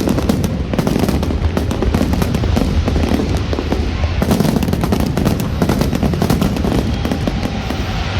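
New Year fireworks display: a dense, rapid crackle of many small bursts going off continuously over a low rumble.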